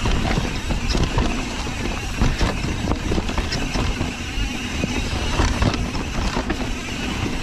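Mountain bike descending a dirt singletrack at speed: wind rushing over the microphone and tyres running on dirt, with frequent clicks and rattles from the bike over bumps.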